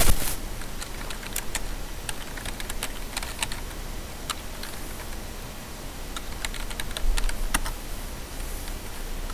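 Typing on a computer keyboard: irregular key clicks, with a heavier cluster of keystrokes about seven seconds in.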